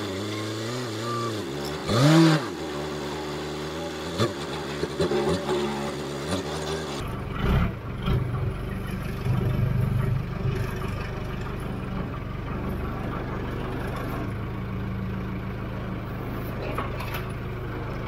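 Diesel engine of heavy farm equipment running, its pitch rising and falling as it works, with a short rev about two seconds in. About seven seconds in it changes to a steadier, lower engine note.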